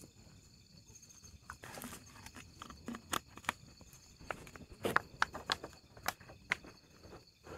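Plastic handling noise: a plastic water bottle crackling and being capped, and a plastic food box being handled, giving a string of sharp clicks and crinkles from about two seconds in. Faint steady insect chirring runs behind.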